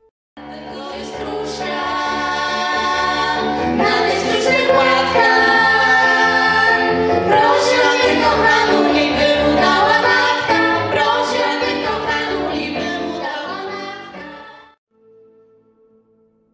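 Children's choir singing a song together, beginning just after the start and breaking off abruptly near the end, leaving only a faint held tone.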